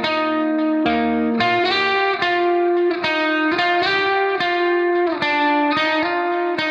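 Background music: an electric guitar playing a steady run of plucked, sustained chords, the notes changing about every half second to a second.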